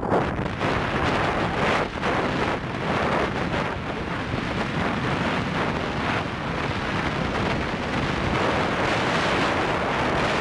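Steady wind rush buffeting the microphone of a moving motorcycle, a loud gusty rumble.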